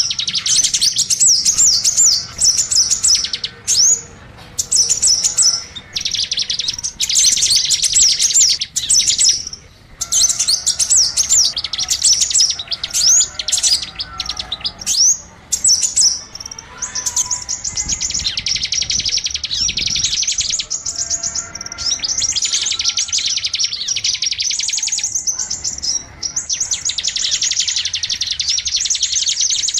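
Small songbirds chirping rapidly and high-pitched in dense bursts with short breaks: a bird-lure (pikat) call for drawing in small birds.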